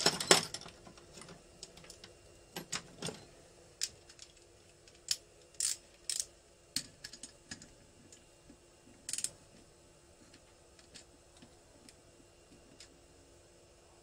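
Ratchet torque wrench clicking and clinking on the cylinder head nuts as they are tightened: a loud metallic clatter at the start, then scattered single ratchet clicks that thin out and grow fainter.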